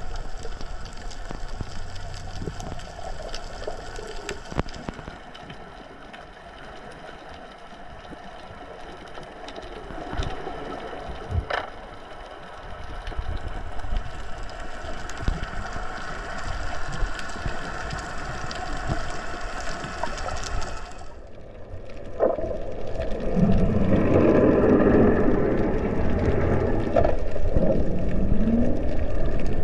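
Underwater sound picked up by a camera below the surface: a muffled, steady water noise with a faint hum running through it. From about 23 seconds in, a louder rushing and bubbling sound sets in.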